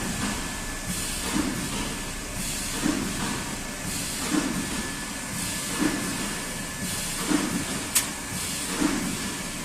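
Workshop machinery running in a regular cycle: a hiss and a low pulse come round about every second and a half over a steady high whine. One sharp click about eight seconds in.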